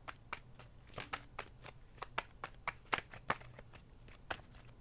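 Tarot deck being shuffled by hand: a run of faint, irregular card flicks and clicks.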